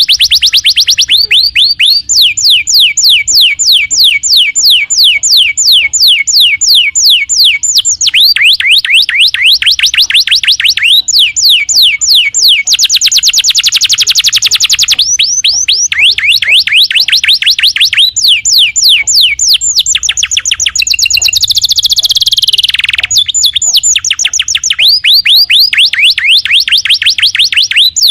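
Domestic canary singing a long continuous song of rapid trills. Each phrase is a quick string of one repeated note before it switches to a new note every second or two, with a long falling note about three quarters of the way through.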